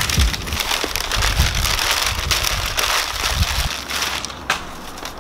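Crumpled packing paper rustling and crinkling as hands dig through it and pull it out of a cardboard box, dying down about four seconds in, with a single click near the end.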